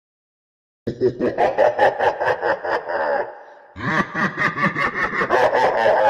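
Laughter sound effect: a voice laughing in quick repeated bursts, starting about a second in, with a brief break partway through.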